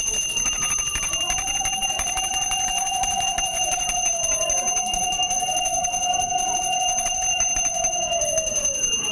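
Brass puja hand bell (ghanti) rung steadily and without pause, its clapper striking rapidly and holding a bright, sustained ring. Underneath, a softer lower tone swells and falls every three to four seconds.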